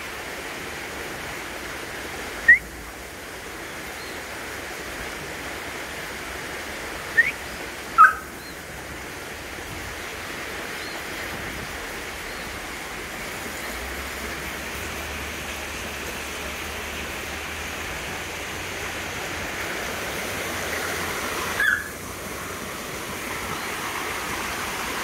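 Border collie giving short, high-pitched, bird-like squeaky whines, four times, the chirping whine it makes when it wants something, over the steady rush of a mountain stream and small waterfall.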